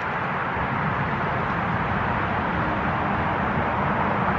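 Steady vehicle noise, an even wash with no distinct events.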